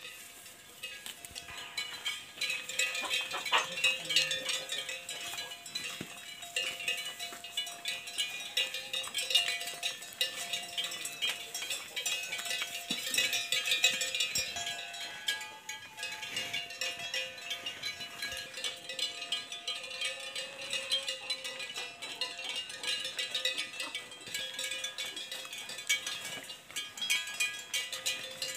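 Wooden bells on grazing cattle and water buffalo clonking irregularly as the animals move and feed.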